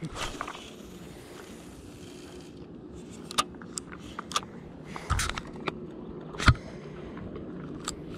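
Fishing line hissing off a spinning reel's spool during a cast for about two and a half seconds. Then comes a string of sharp clicks and knocks as the reel is handled, the loudest a little past six seconds in.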